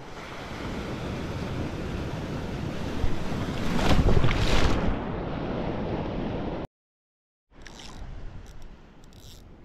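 A sea wave surging in and washing over the camera: the rush of water builds for a few seconds and is loudest about four seconds in as the water splashes across the microphone. The sound then drops out completely for under a second and comes back as quieter lapping water.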